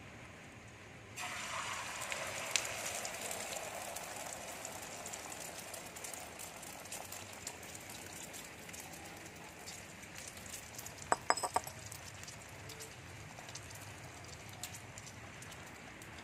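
Beaten egg and onion poured into hot oil in a frying pan. A sudden loud sizzle starts about a second in and eases to a steadier frying crackle. A quick run of a few sharp clinks comes partway through.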